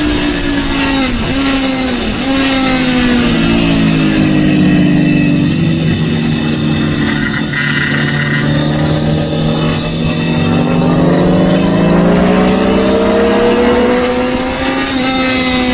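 Sport motorcycle engine running hard at track speed, heard from on board with wind noise. Its pitch dips sharply twice in the first two seconds, holds steady, then climbs slowly through the second half and drops off near the end.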